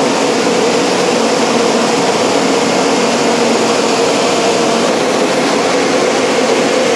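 Automatic car wash's overhead drying blowers running at full speed: a steady rush of air with a constant hum.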